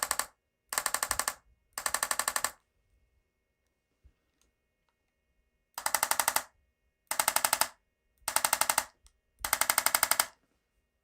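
Handheld chiropractic adjusting instrument firing short bursts of rapid taps, about a dozen a second, into the patient's back for a low-force adjustment. Three bursts, a pause of about three seconds, then four more.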